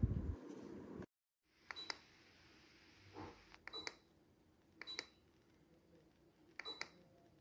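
A steady low noise cuts off suddenly about a second in. Then come four or five short double clicks a second or two apart, most with a brief high beep: remote-control button presses answered by the ceiling fan receiver's confirmation beep.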